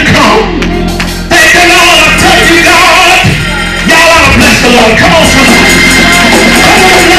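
Loud live gospel praise music: voices singing over drums and band, getting louder a little over a second in.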